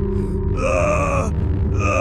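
A high cartoon voice straining and groaning in two long held cries, as if pushing in labour, over steady low background music.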